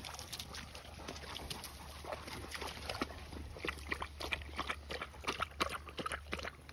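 Akbash dogs wading and drinking in a shallow stream: irregular small splashes and wet lapping clicks, coming thicker in the second half.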